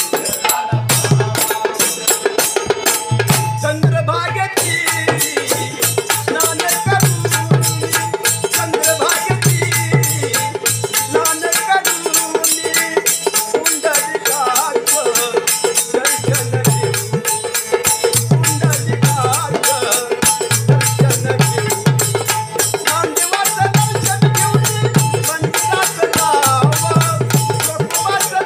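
Marathi devotional folk music (a Vitthal abhang): a fast, steady rattle keeps time under a winding melody, with low drum strokes coming in short repeated stretches.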